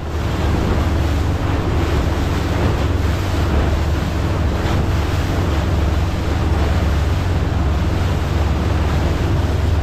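Wind buffeting the microphone and water rushing past a boat's hull as the boat runs over open sea. A loud, steady rush with a deep rumble and a faint steady hum under it.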